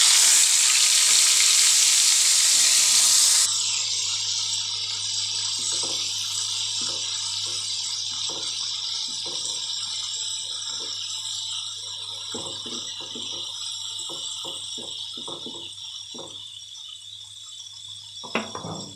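Fish frying in hot oil in a pan, sizzling loudly for the first few seconds, then settling to a steadier, quieter sizzle with frequent crackling pops of spattering oil.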